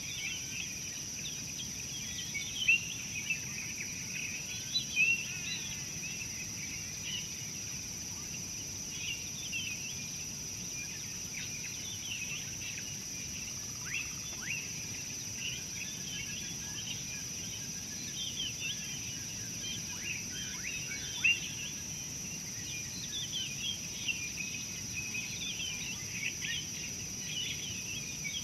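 Many small birds chirping and twittering in the bush, with a few louder chirps standing out, over a steady high-pitched drone.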